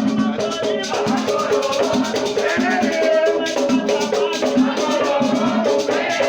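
Batuque ritual music: drums and shaker rattles beating a fast, steady rhythm, with voices chanting a melody over it.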